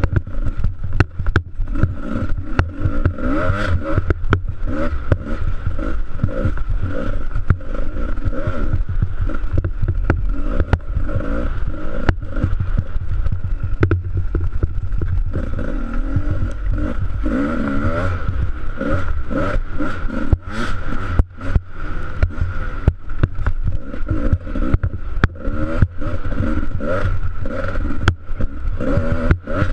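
Dirt bike engine revving up and down continuously as the bike rides a rutted snowy trail, with frequent knocks and rattles from the bumps.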